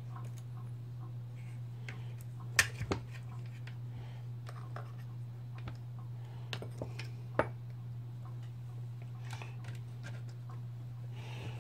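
Hand tools clicking and scraping against a Stihl MS180C chainsaw's housing while it is being taken apart, with a few sharper metal clicks, the loudest about two and a half seconds in and another about seven seconds in. A steady low hum runs underneath.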